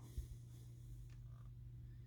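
Near silence: quiet room tone with a steady low hum and a couple of faint ticks.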